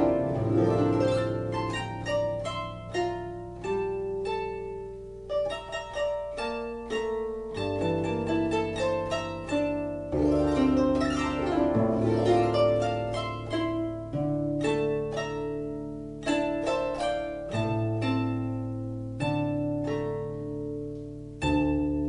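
Harp music: a run of plucked notes, each ringing and fading, over held low bass notes, with a strong new chord struck near the end.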